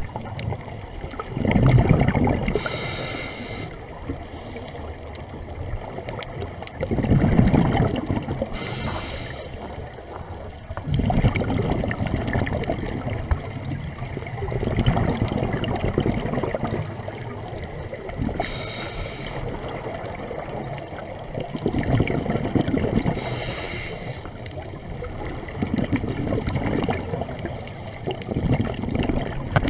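Scuba diver's regulator breathing heard through the underwater camera: a rumbling gurgle of exhaled bubbles every four to five seconds, with a short hiss of an inhaled breath now and then between them.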